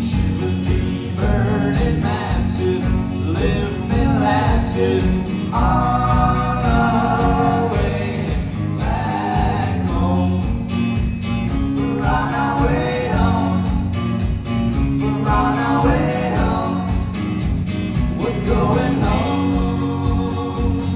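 Live rock band playing: electric guitars and drums under several voices singing together.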